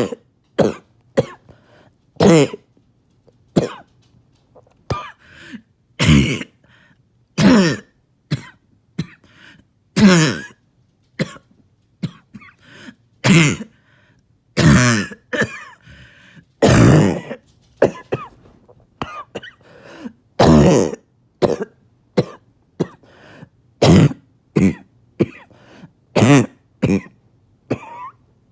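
A person's harsh barking cough, coming again and again: a loud cough every one to three seconds with softer coughs in between, each loud one dropping in pitch.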